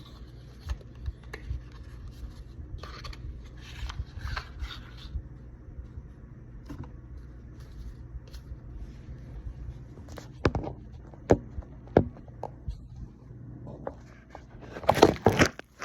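Pokémon card packaging being opened by hand: scraping and rustling, with a few sharp clicks about two-thirds of the way through and a louder burst of rustling near the end.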